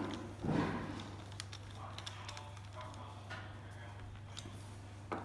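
Faint handling noises on the engine: a rustling thump about half a second in, then scattered light clicks and rattles of tools, over a steady low electrical hum.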